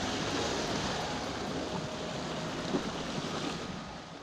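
Sea surf washing against shore rocks, a steady rushing that fades off near the end, with some wind noise on the microphone.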